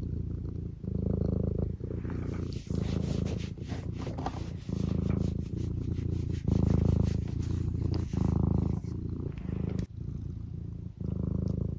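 Domestic tabby cat purring close up, the purr swelling and easing with each breath about once a second, with light crackling clicks through the middle part.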